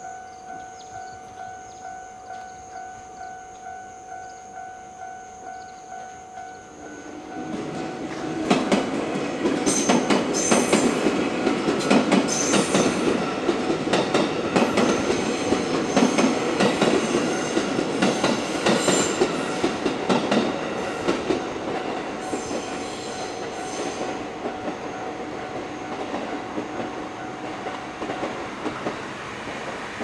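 A Japanese level-crossing alarm bell rings steadily at about one and a half strokes a second. About seven seconds in, a JR West 221 series six-car electric train arrives and runs past over the crossing, its wheels clattering over the rail joints, loudest for about the next thirteen seconds and then easing off while the bell keeps ringing under it.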